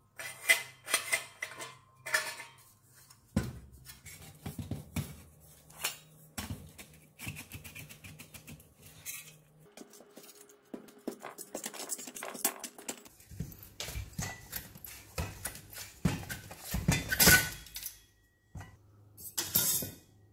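Sheet-metal parts of a small model jet turbine engine knocking, clinking and scraping against each other as they are handled and fitted together by hand. Irregular small clinks throughout, with the loudest clanks near the end.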